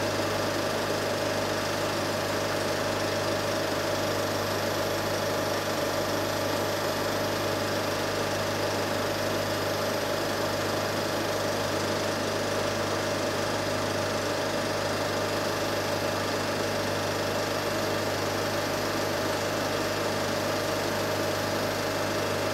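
Film projector running steadily, its motor and intermittent film-advance mechanism giving a constant mechanical whirr and hum.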